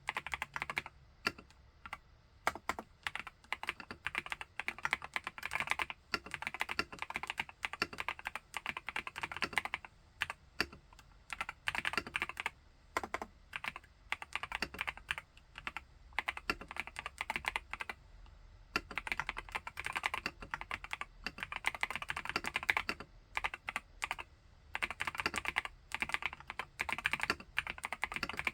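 Epomaker Brick 87 mechanical keyboard with Epomaker Wisteria linear switches being typed on: a fast, continuous run of keystrokes with a brief lull about two-thirds of the way through.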